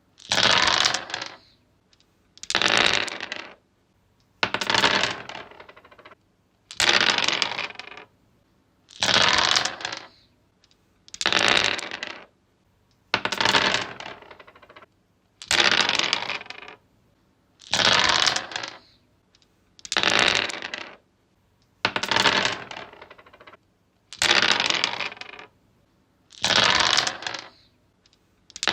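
Dice rolled again and again on a tree surface: each throw is a clatter of about a second, about every two seconds, with near silence between throws.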